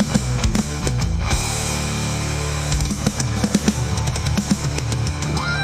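Instrumental heavy Southern rock: a drum kit with frequent hits over sustained distorted guitar and bass, no vocals.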